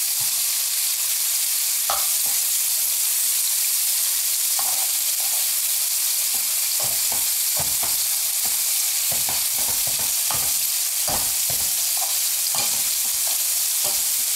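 Chunks of beef searing in hot olive oil in frying pans: a steady sizzle, with scattered light knocks and clinks as the pieces are turned over with tongs.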